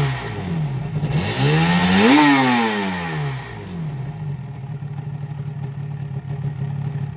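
Suzuki RG250Γ's two-stroke parallel-twin engine revved once, its pitch rising for about a second and falling back, then idling steadily.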